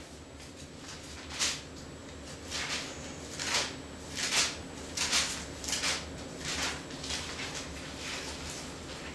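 Thin Bible pages being turned and leafed through by hand: a string of about a dozen short papery swishes, at times two or three close together, over a faint steady low hum.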